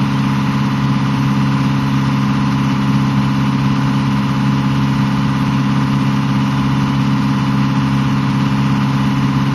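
A sailboat's engine running steadily at constant speed while motoring, a low even drone that does not change pitch.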